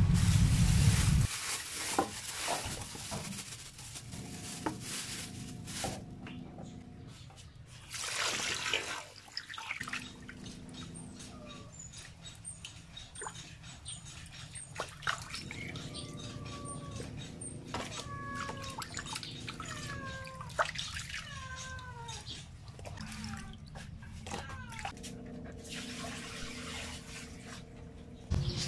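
Water splashing and sloshing as raw milkfish pieces are washed by hand in a pan. Cats meow several times in short, falling calls, and there are faint high chirps.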